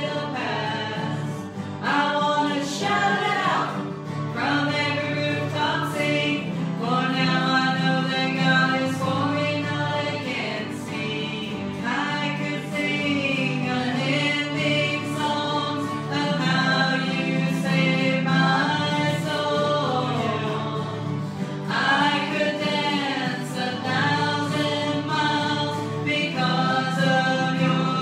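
Live gospel worship song: a woman singing the melody into a microphone, accompanied by electric keyboard and acoustic guitar.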